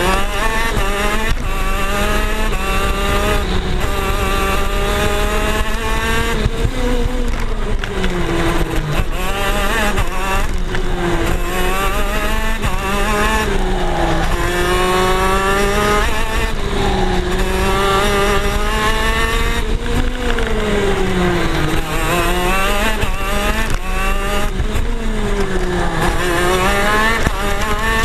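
Onboard sound of a KZ 125cc two-stroke gearbox kart engine at race pace, the revs climbing in steps through the gears and then falling away into the corners, over and over.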